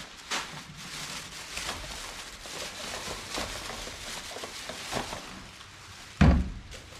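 Small handling noises, light taps and rustles, then one heavy thump about six seconds in.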